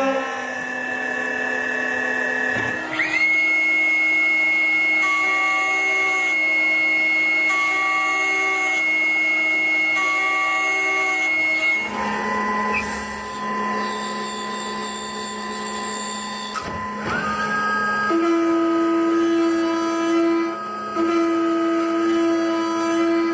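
CNC mill-turn machine cutting a metal gear part: steady spindle whine that jumps between pitches a few times, rising as the spindle speeds up about 3 seconds in and again around 17 seconds in.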